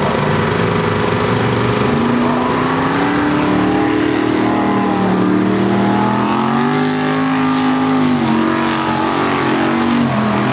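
Formula Offroad buggy's engine revving hard under full load as it climbs a steep hill, the pitch rising and falling as the throttle is worked.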